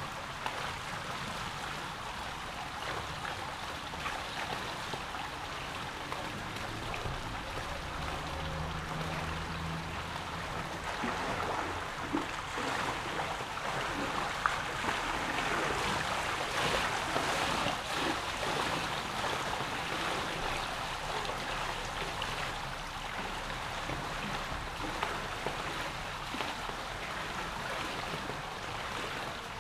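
Steady rush and trickle of swimming-pool water close by, with faint splashes from a person swimming across the pool.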